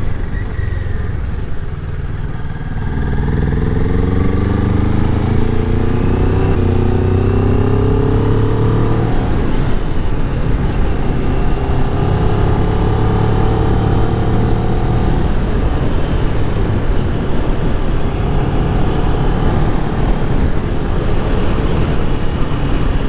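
Kawasaki Ninja 400's parallel-twin engine under way, with rushing wind noise. The engine's pitch climbs steadily from about three seconds in, falls back about nine seconds in, climbs again, then settles into a steadier run.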